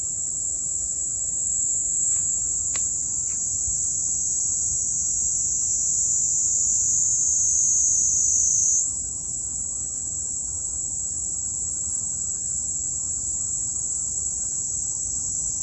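Kaempfer cicada (niinii-zemi) singing a continuous, high-pitched buzzing trill. About nine seconds in, the buzz shifts a little higher and gets slightly softer.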